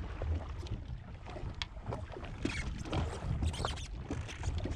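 Wind on the microphone and water lapping against a jet ski's hull make a steady low rumble. Scattered small clicks, taps and splashes run through it, busiest around the middle.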